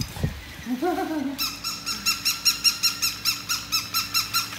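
Battery-operated toy dog giving its electronic bark: a fast, even run of high yapping chirps, about four or five a second, starting about a second and a half in. Just before it comes a short, lower call.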